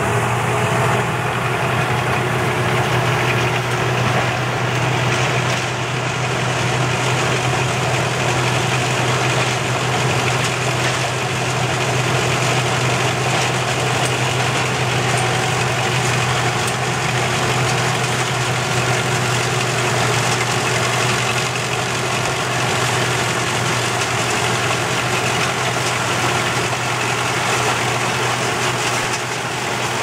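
Small rice combine harvester running steadily while harvesting rice: a constant low engine drone under an even mechanical rush from its cutting and threshing gear.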